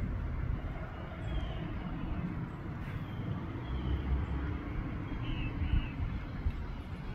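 Outdoor street ambience: a steady low rumble of road traffic, with a few faint, short, high chirps scattered through.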